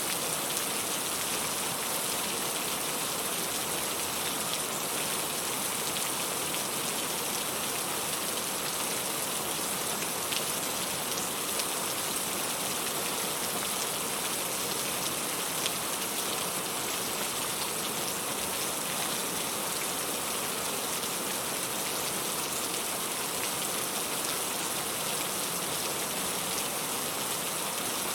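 Steady rain falling, an even hiss with a few individual drop ticks; no thunder.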